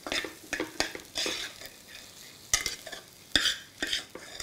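A spatula stirring sprouted moth beans in a pressure cooker with hot oil: irregular scraping strokes against the pan, a few each second, over a light sizzle.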